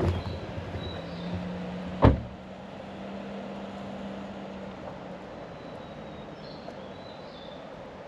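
A single heavy thump about two seconds in, like a door being shut. Under it runs a steady low hum that fades out near the end.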